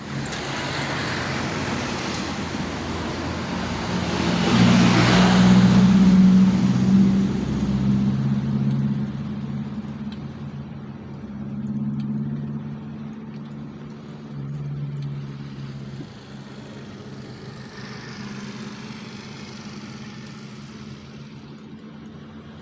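A motor vehicle engine running with a steady low hum, growing louder about four seconds in and easing off again after about eight seconds.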